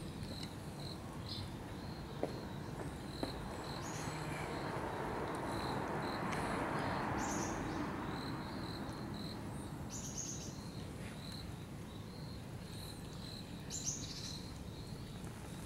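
Outdoor ambience: a short high chirp repeating steadily over a low background that swells and fades midway, with a few brief high noisy bursts.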